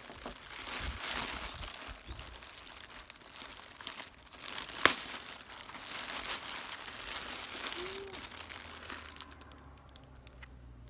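A delivery package being ripped open by hand: packaging crinkling and rustling, with one sharp snap about halfway through, then the rustling dies away near the end.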